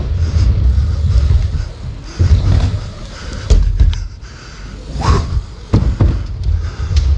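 Dirt jump bike being ridden on an indoor bike park track: a steady low rolling rumble with several sharp knocks and thumps from the bike, the clearest about three and a half, five and six seconds in.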